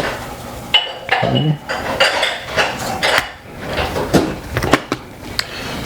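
Dishes and metal utensils being handled on a kitchen counter: a string of short knocks and clinks, a few of them ringing briefly.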